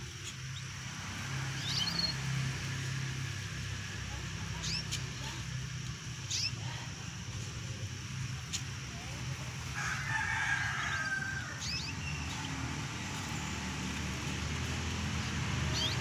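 A rooster crowing once, about ten seconds in, with short chirps from caged canaries now and then, over a steady low rumble.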